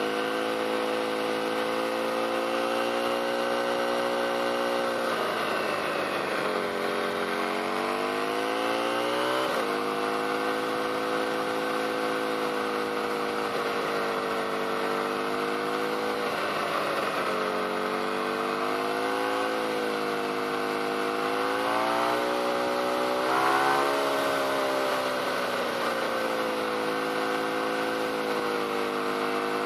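Motorcycle engine running at road speed under a steady rush of wind. Its pitch falls and climbs back again a few times as the throttle is eased off and reopened.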